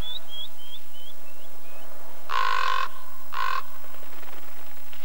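Common raven giving two harsh calls about a second apart, the first longer than the second. Before them, a run of short high notes steps down in pitch and fades.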